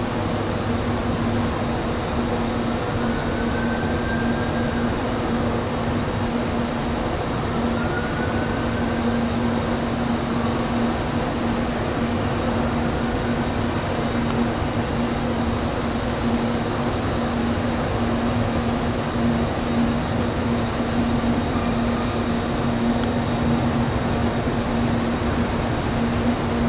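Steady mechanical drone with a constant low hum, unchanging throughout, with faint pitch swells rising and falling twice in the first ten seconds.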